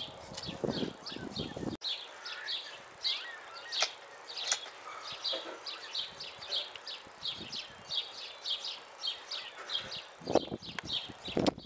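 Insect chirping: short high chirps repeating at about four a second, with a couple of sharp clicks about four seconds in and some lower knocks near the end.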